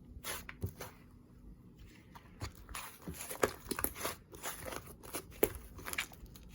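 Slime being squeezed and pressed by hand, giving scattered small crackles and pops that come more often after about two seconds.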